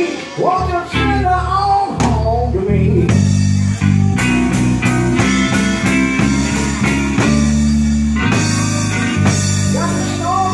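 Live blues-rock band playing: an electric guitar lead line with bent notes over low bass notes and a drum kit, the drumming growing busier about three seconds in.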